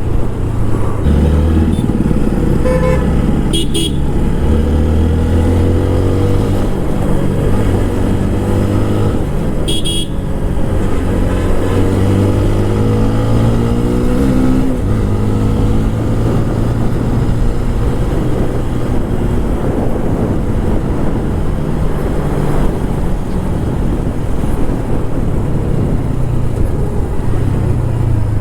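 TVS Apache RTR 160 4V's single-cylinder engine pulling hard as the motorcycle accelerates up through the gears, its pitch climbing and dropping back at each shift, then easing off. A horn honks briefly about four seconds in and again about ten seconds in.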